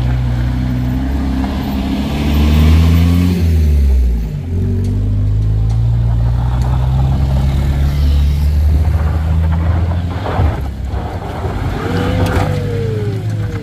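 Vehicle engines working hard on a steep climb: a minibus engine revs under heavy load, its pitch rising and falling in the first few seconds, then running steadier. Near the end another engine revs up and falls back as a car climbs with its wheels spinning in the loose dirt.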